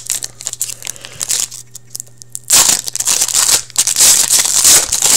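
Trading card pack wrapper crinkling and tearing as it is opened by hand, louder in the second half.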